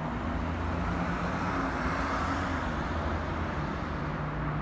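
A motor vehicle passing by: a low engine hum with tyre and road noise that swells to a peak about two seconds in and then fades.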